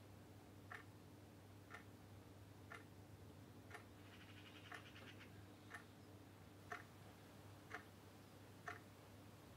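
A clock ticking faintly, one tick a second, over a low steady hum of room tone.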